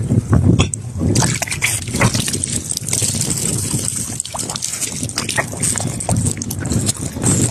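Water trickling, dripping and splashing as a fish is lifted from shallow seawater, with wind rumbling on the microphone.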